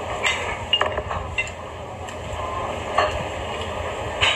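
Close-up eating sounds of udon being finished from a ceramic bowl: slurping and mouth sounds, with scattered short clicks and knocks of chopsticks against the bowl, over a steady low hum.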